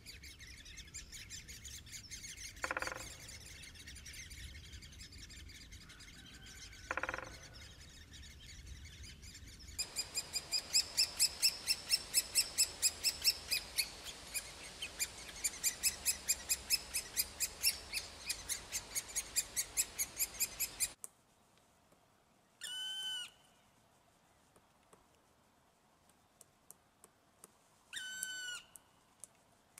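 Birds chirping outdoors: two short calls over background noise, then a loud run of rapid, evenly repeated chirps, about four a second, lasting some ten seconds. The chirping cuts off abruptly into near silence, broken twice by a short sweeping sound.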